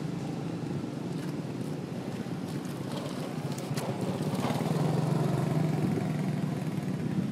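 An engine running steadily with a low hum, growing louder about four seconds in.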